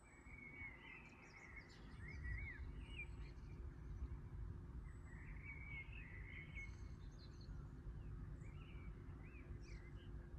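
Small birds chirping: many short, quick chirps come and go throughout, over a steady low rumble of background noise and a faint steady hum.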